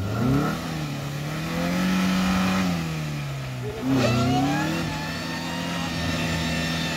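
Maruti Suzuki Swift hatchback's engine revving as the car churns through deep mud in a ploughed field. The revs climb just after the start, ease off, then rise sharply again about four seconds in before holding steady.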